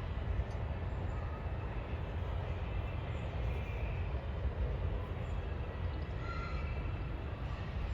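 Steady low rumble of outdoor background noise, with a few faint short chirps.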